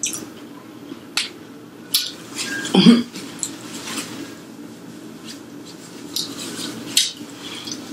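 Eating sounds of a person chewing a fried egg roll: scattered sharp mouth clicks and smacks, with one louder short sound about three seconds in.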